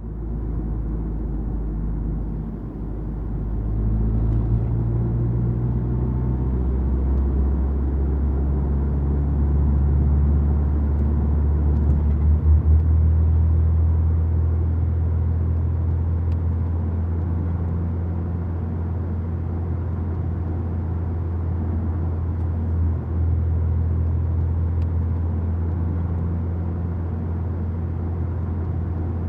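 A steady, deep rumble: a continuous low drone with a fainter hum shifting slightly above it.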